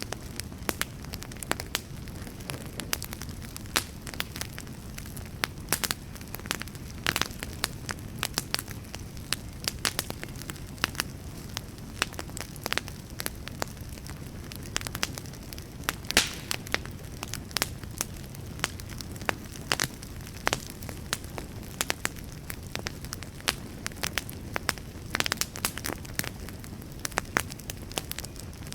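Wood fire burning: a steady low rumble of flame with frequent sharp crackles and pops of burning logs at irregular intervals.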